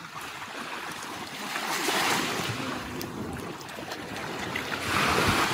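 Small waves washing onto a beach in shallow water, swelling twice: about two seconds in and again near the end.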